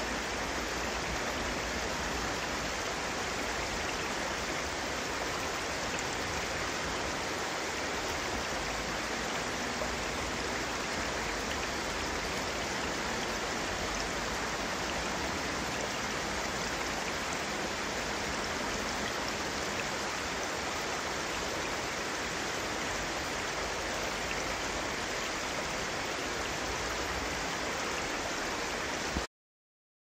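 Steady, even rush of water from a thin waterfall spilling down a rock face into a forest stream; it cuts off abruptly shortly before the end.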